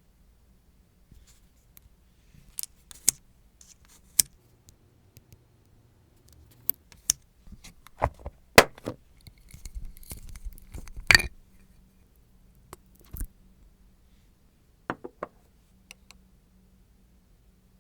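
Nail-care tools and small items being handled close to the microphone: scattered sharp clicks and taps, with a short scratchy scraping about ten seconds in.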